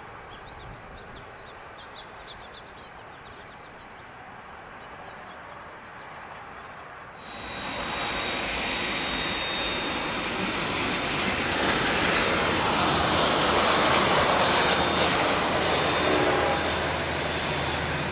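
Faint outdoor background with a few bird chirps, then about seven seconds in an abrupt cut to the loud rush of a Boeing 787's jet engines close by, with a steady high whine over it, growing a little louder before ending suddenly at the end.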